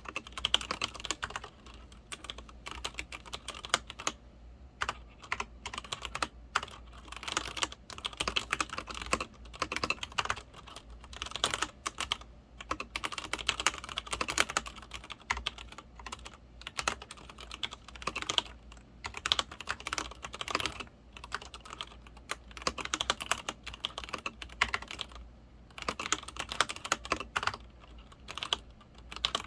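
Typing on a Leopold FC900R PD mechanical keyboard with linear Cherry MX Red switches: quick runs of key clacks, pausing briefly now and then.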